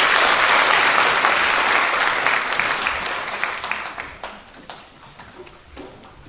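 Audience applauding, loud at first and fading out about four seconds in to a few scattered claps.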